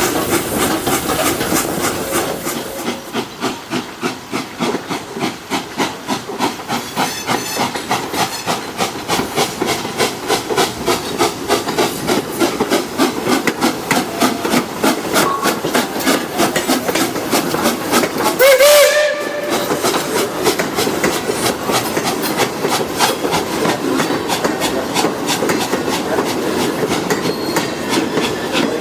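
Steam train pulled by an 1897 Baldwin locomotive, running along with a steady, rhythmic clatter and hiss. About two-thirds of the way through, the locomotive's steam whistle gives one short, loud blast.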